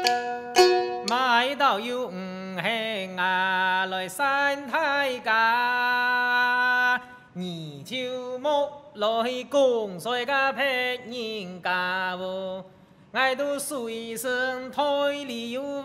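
Hakka mountain song (shan'ge) sung in a sliding, chant-like style, with a few sharp clacks of bamboo clappers between phrases. It opens as the last plucked notes of a lute fade out, and the singing pauses briefly twice.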